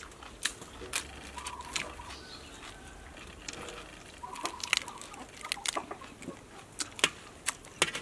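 Scattered small clicks and crinkles of a cabbage-leaf wrap of boiled pork intestine and cucumber being folded by hand and pressed into a bowl of sauce, with a chicken clucking a few times in the background.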